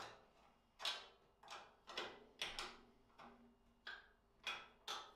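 A spanner tightening the nuts that hold a table saw's fence rail onto its mounting bolts: a run of sharp clicks, roughly two a second at uneven spacing, each dying away quickly.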